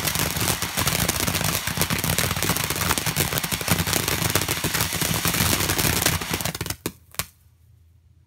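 Ground fountain firework spraying sparks: a loud, dense crackling hiss that cuts out near the end, followed by two sharp pops.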